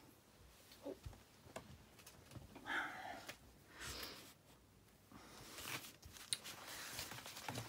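Faint rustling, sliding and light taps of card and paper being handled and moved across a gridded craft mat by hand, with a few brief rustles and small clicks.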